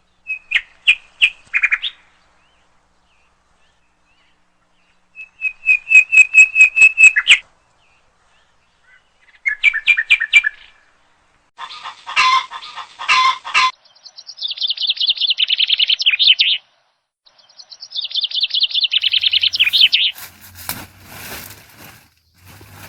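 Songbird singing: separate phrases of rapid, high trills and chirps, each a second or two long with silence between them. Near the end come a few sharp clicks and some rustling.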